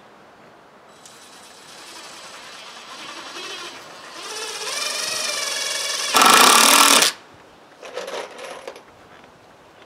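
Power driver running a screw into the porch-railing wood: the motor whine builds and rises in pitch, then about a second of loud hammering rattle as the screw bites and seats, followed by a shorter burst a little later.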